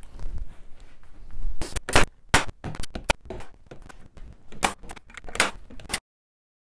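Finishing nails being driven into the cabinet's side panel: a series of sharp, irregularly spaced clacks, which cut off abruptly near the end.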